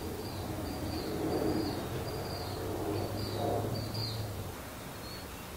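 Motor oil gurgling from a plastic jug as it is poured into a new spin-on oil filter, swelling twice. A bird chirps about twice a second throughout, over a low steady hum.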